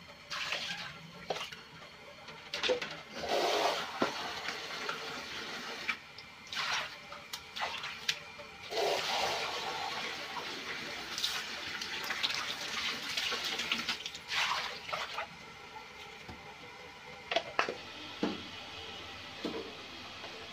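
Water from a wall tap running into a plastic dipper and splashing into an aluminium pot as rice is rinsed, coming in uneven surges with a longer steady stretch of running water in the middle. A few short knocks near the end.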